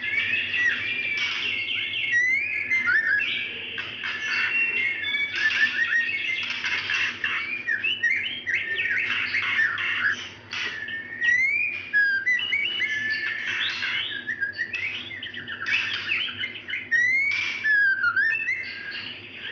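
Female white-rumped shama calling without pause in a dense string of rising and falling whistled notes mixed with short sharp notes. It is a female in breeding condition calling for a male, the kind of call played to rouse a male that has gone quiet into singing.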